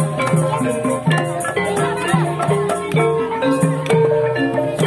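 Live Javanese gamelan playing: bronze pot gongs and metallophones ring out a melody over kendang drum strokes, with no singer and no amplification.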